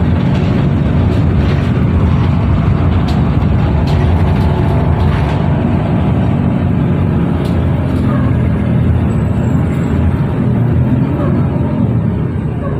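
Steady engine and road noise inside a moving city bus, with a few light rattles.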